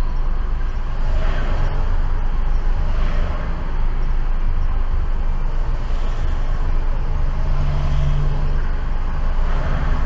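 Road traffic crossing an intersection, heard from inside a stopped car: a steady low rumble, with a swell of tyre and engine noise each time a vehicle passes, about five times.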